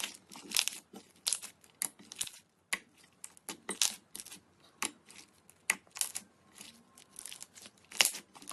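Slime being squished and stretched, giving irregular sharp crackles and pops, a few a second, with short quiet gaps between.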